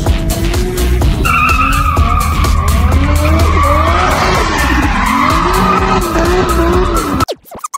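Turbocharged Mitsubishi Mirage engine (Garrett T25, no blow-off valve) revving hard, its pitch rising and falling over and over under a rapid chattering flutter, with a high squealing whine from about a second in. The sound cuts off abruptly near the end.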